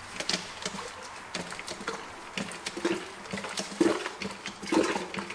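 Hand-pumped transmission-oil filler being worked, giving irregular clicks and knocks, as automatic-transmission oil is pumped through the pan adapter into a Mercedes 7G-Tronic Plus gearbox for the first 6 litres of the fill.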